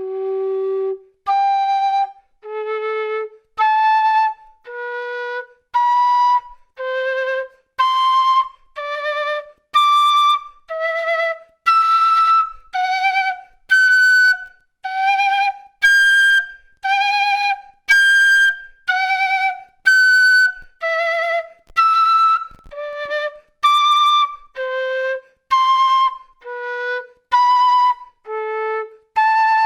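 A quena (Andean notched end-blown flute) playing an octave exercise in detached notes, about one a second. Each note sounds first in the low octave and then an octave higher, changing breath and embouchure for each. The pairs climb step by step from the low G, reach the top about halfway through, then come back down.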